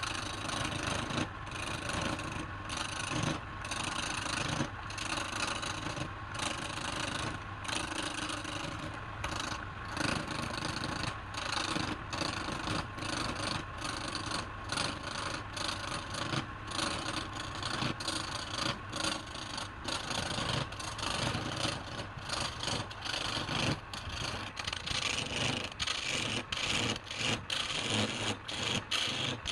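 A cutting tool scraping and rasping on wood in repeated strokes over a faint steady hum. The strokes come about once a second at first and speed up to two or three a second near the end.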